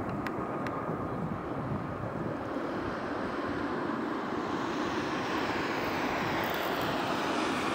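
Boeing 757-300 airliner landing: steady jet-engine noise that grows louder and brighter from about three seconds in, as the main wheels touch down and the aircraft rolls out.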